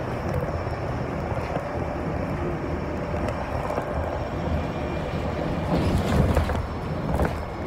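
City bus engine and road noise heard from inside the moving bus: a steady low rumble, with a brief louder rush about six seconds in.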